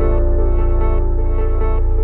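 Ambient background music with a slow chord held steady.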